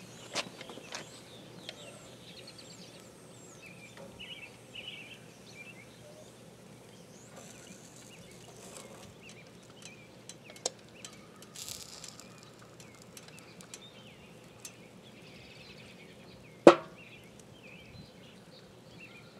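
Mostly quiet outdoors, with birds chirping, a few light metal clinks, and one sharp metal knock about three-quarters of the way through, as the steel crucible held in tongs knocks against the muffin-pan mold while molten aluminum is poured.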